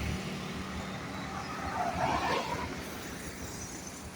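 Bus diesel engine running with a steady low hum, with a brief louder noise about two seconds in.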